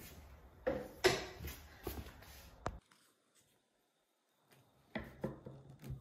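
A wooden Montessori buckle frame being handled: a cluster of light knocks and scrapes of wood as it is lifted and moved. The sound drops out for about two seconds around the middle, then a few more knocks come as it is set down on a wooden table.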